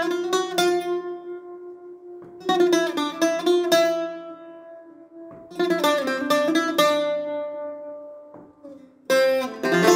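Greek bouzouki playing a slow melodic phrase in the sabah scale: four clusters of quickly picked notes, each left ringing and fading away before the next begins.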